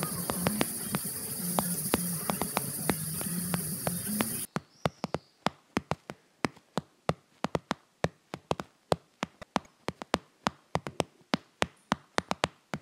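Cicadas buzzing in a steady high chorus, cut off abruptly about four seconds in, under a running pattern of sharp clicks or taps, about four a second in an uneven rhythm, which carries on alone after the cut.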